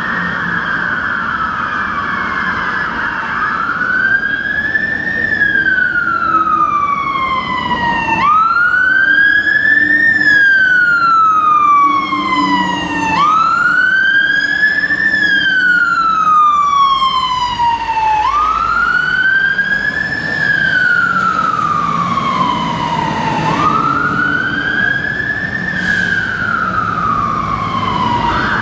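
London Fire Brigade fire engine siren on a slow wail, rising and falling about every five seconds. A low rumble of engine and traffic runs underneath.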